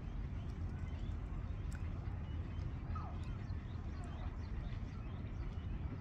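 Steady low rumble of outdoor ambience with a few faint chirps.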